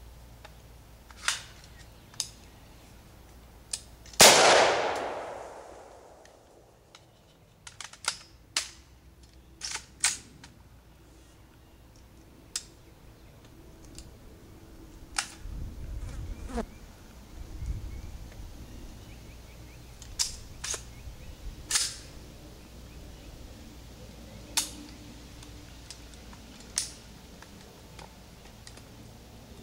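A single shot from an AR-15 with a Hardened Arms 16-inch carbine upper about four seconds in, with a long fading tail, followed by a run of sharp metal clicks and clacks as the action is worked by hand. The rifle is failing to feed after the shot, its bolt carrier stopping short of battery.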